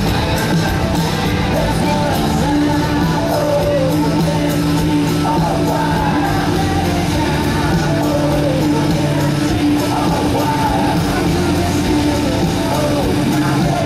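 Loud rock music with singing, and a steady low drone underneath.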